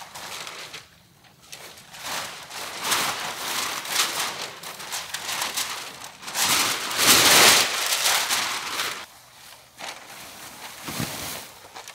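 Bursts of rustling, crinkling noise with no clear tone, loudest a little past halfway through.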